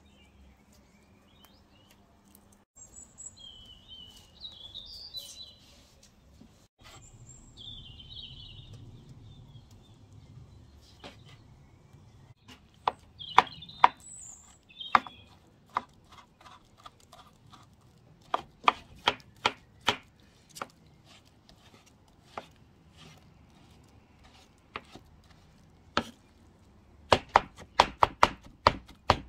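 Chef's knife chopping soft, peeled charred eggplant on a wooden cutting board: a few scattered strokes at first, then a quick run of about four chops a second near the end.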